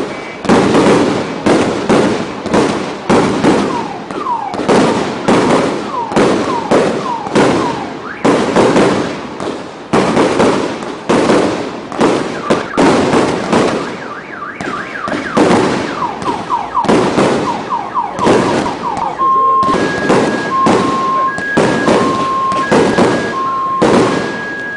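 Fireworks display: a rapid string of aerial shell bursts and crackles, with whistling rockets gliding in pitch between them. About three-quarters of the way through, an alarm starts beeping in two alternating tones under the bangs.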